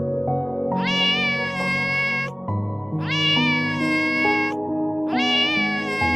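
Domestic cat meowing: long, drawn-out meows that rise at the start and waver, repeated evenly about two seconds apart, the last starting near the end. Soft background music plays underneath.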